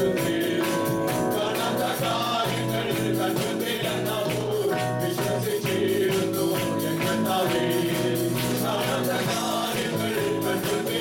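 Live praise and worship music: a band playing with voices singing, over a steady, fast percussion beat.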